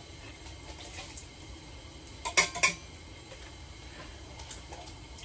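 Two sharp metal clinks close together, a utensil against a pan of frying fish, over a faint steady hiss.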